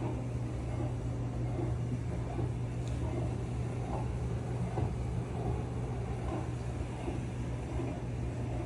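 A steady low hum over a noisy rumble, running evenly without change.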